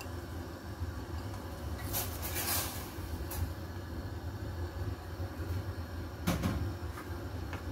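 Raw prawns and mussels sliding out of a ceramic bowl into a pot of broth, with a brief scraping splash about two seconds in and a sharp knock a little after six seconds, over a steady low hum.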